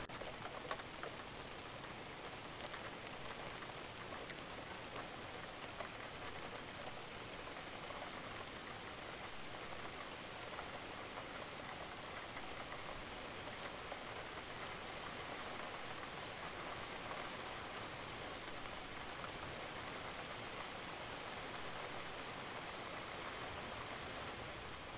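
Steady rain, an even hiss sprinkled with many small drop ticks.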